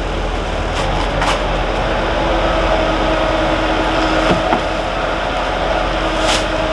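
A heavy machine's engine running steadily, with a few short knocks over it.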